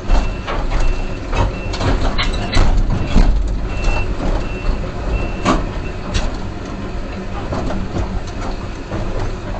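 Case 245 excavator's diesel engine running under load with a low rumble, while it moves with many heavy clanks and knocks. A backup alarm beeps about twice a second for stretches near the start and the middle.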